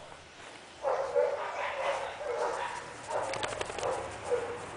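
A dog whining in a series of short, pitched cries, starting about a second in.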